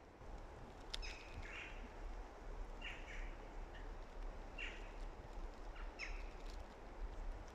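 Birds giving short, high calls, about six of them, some in quick pairs, over a steady low outdoor hum; a sharp click about a second in.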